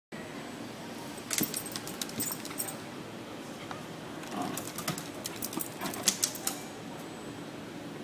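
Two bursts of quick metallic jingling and clicking, each lasting a second or more, from a Cairn terrier's collar tags and leash clip as the dog jumps up and paws at a glass display, over a steady low background hum.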